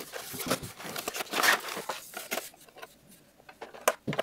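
Toy packaging being opened by hand: crinkling, tearing and sharp clicks, loudest about one and a half seconds in, quieter after that with two clicks near the end.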